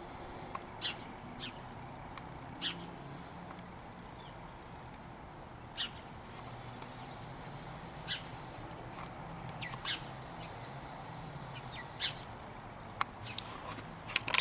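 Small birds chirping: about a dozen short, high chirps scattered irregularly, over a faint steady low hum. A few sharper clicks come right at the end.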